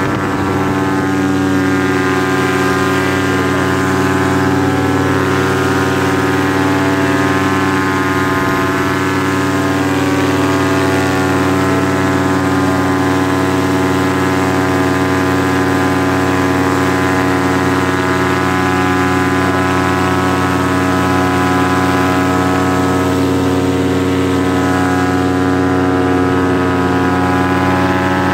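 Paramotor engine and propeller running steadily and loudly in flight, its pitch holding even at cruise power, heard from the harness seat close to the engine.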